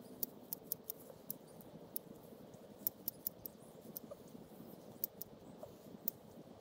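Sorrel being harvested: a dozen or so small, sharp clicks of stems being taken off one by one, irregularly spaced, over light rustling of leaves.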